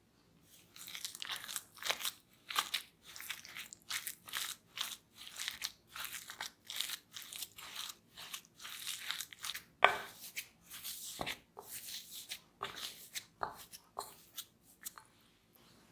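Repeated crisp crunching of crispy food, irregular at about two to three crunches a second, with one sharp louder crack about ten seconds in.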